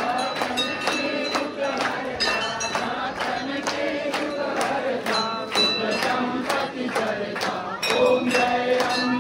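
Devotional aarti chanting by many voices over a steady beat of percussion strikes, about three a second, with ringing high tones like temple bells.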